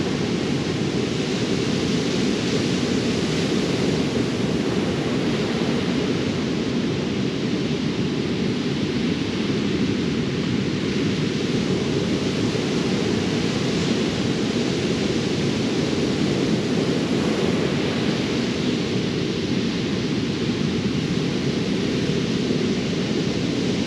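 Steady noise of ocean surf breaking on the shore, an even rushing sound with no break.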